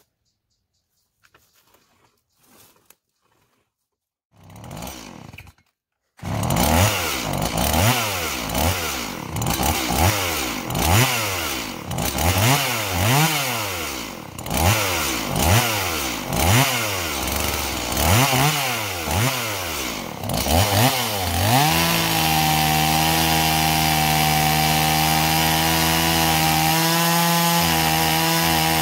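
Stihl MS170 two-stroke chainsaw starting about six seconds in, then revved up and down about once a second. From about 22 seconds in it is held at a steady high speed as it rips lengthwise through a fir log.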